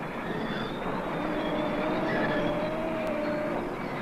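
Heavy metal machinery running with a loud, dense clatter and rumble that starts abruptly, and a thin metallic squeal held for about two seconds in the middle.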